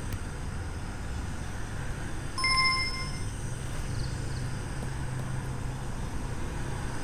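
A steady low rumble of background ambience, with a single short bell-like ding that rings for under a second about two and a half seconds in.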